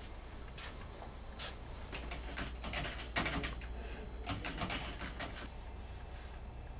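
Typing on a computer keyboard: keys clicking in two quick bursts, with a few scattered taps before them.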